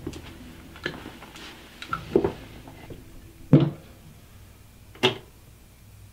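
Four separate knocks and clicks of handling, the loudest a little past halfway as a pistol is set down on a wooden desk, then a sharp click near the end as a button on a JVC portable boombox is pressed.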